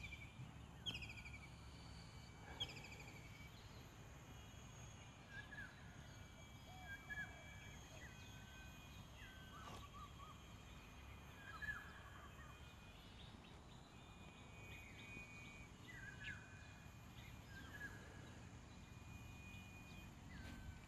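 Faint outdoor ambience with birds chirping now and then; a few short falling call notes come in the first few seconds.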